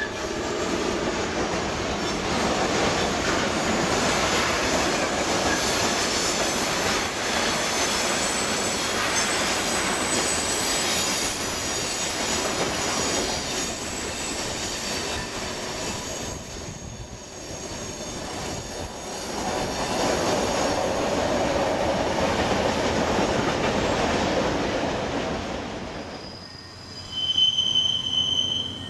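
Long freight train of tank-container and open gondola wagons rolling past: steady wheel-and-rail noise with high wheel squeal, dipping briefly past the middle and then swelling again. Near the end a short, louder burst of high squealing tones comes as a single-car diesel railcar goes by.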